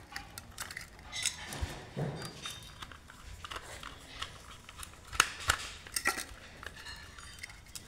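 Small clicks and light scrapes of a screwdriver working the terminal screw of a plastic double-pole breaker as a wire is fastened in, with a couple of sharper clicks a little after five seconds in.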